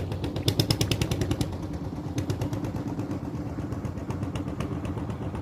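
A small engine running steadily, with a rapid, even ticking of about a dozen beats a second over a low hum; the ticking is loudest in the first second and a half.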